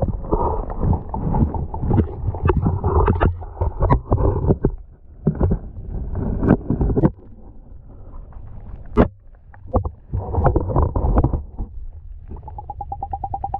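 Kayak hull scraping and grinding through broken lake ice, with many sharp knocks and cracks as the kayak is pushed across it, and a fast rattling scrape near the end.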